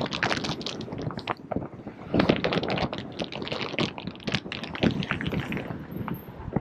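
Wind buffeting the microphone in uneven gusts while riding along on an electric scooter.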